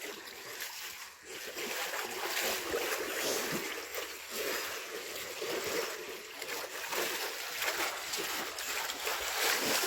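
Water splashing and sloshing in a sheep dip bath as Cheviot hoggets swim through it, an irregular run of splashes with no let-up.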